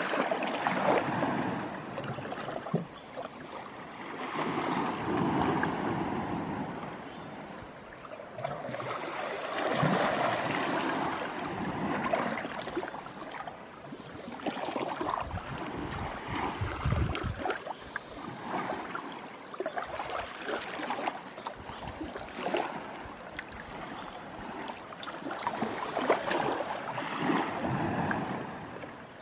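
Calm sea lapping against the rocks and shore of a sheltered cove, swelling and fading every few seconds as small waves wash in.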